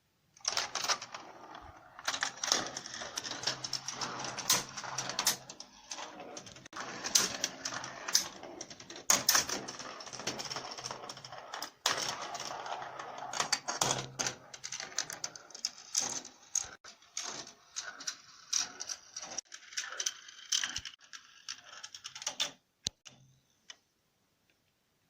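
Glass marbles rolling and clattering through a plastic Gravitrax marble run, with a steady rolling rattle broken by many sharp clicks and knocks as they drop and strike track pieces. It stops suddenly about 22 seconds in.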